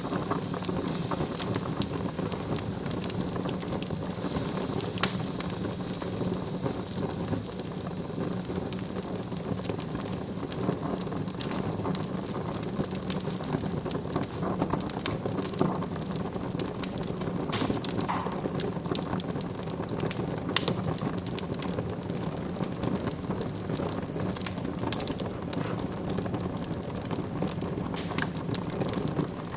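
Wood fire crackling in a fireplace, a steady hiss full of small rapid crackles with a few louder pops scattered through.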